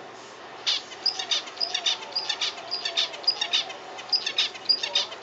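Zebra finch singing: a quick string of short chirps, about four a second, starting under a second in and carrying on throughout.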